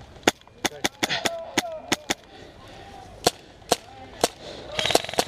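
Airsoft guns firing: about a dozen sharp single shots at uneven intervals, then a fast full-auto rattle near the end. Faint shouting can be heard between the shots.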